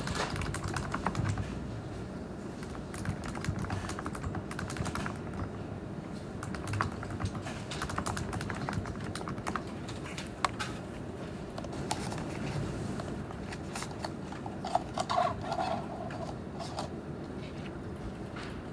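Typing on a computer keyboard: irregular runs of key clicks over a steady low background noise.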